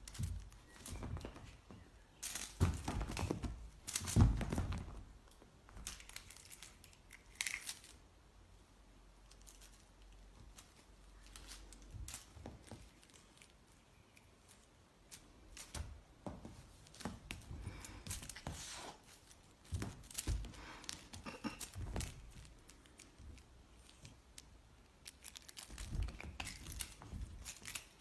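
Siamese cats pouncing on, batting and biting a wand toy on a rug: irregular scuffling and rustling with scattered knocks, the loudest one about four seconds in and another flurry near the end.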